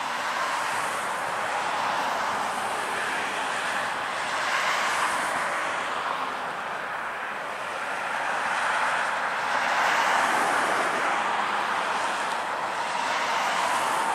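Traffic passing: a steady rushing noise that swells and fades several times, with no distinct engine note.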